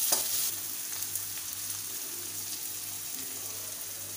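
Cubed potato and brinjal sizzling steadily in a wok, frying in fat rendered from fish fat, with a single knock near the start.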